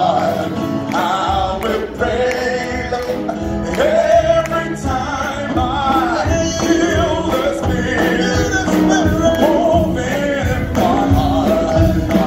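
Live gospel worship song: men singing into handheld microphones over instrumental backing, the bass coming in about a second in.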